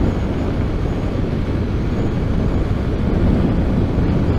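Honda Grom motorcycle riding along: its 125 cc single-cylinder engine running steadily under a constant rushing noise of wind and road.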